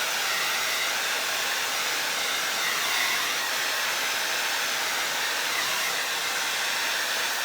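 Handheld hair dryer running steadily on its high setting, a continuous airy rush of blown air.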